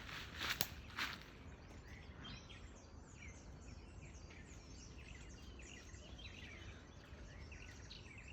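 Birds chirping: many short, quick calls over a faint outdoor background. Two brief loud rustling noises come in the first second.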